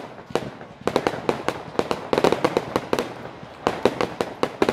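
Fireworks display: a rapid series of sharp bangs from aerial shells and crackling stars bursting, coming in quick clusters of several reports a second.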